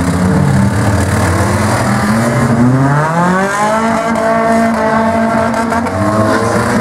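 Several small race cars' engines running and revving together, their pitches rising and falling, with one climbing sharply about three seconds in.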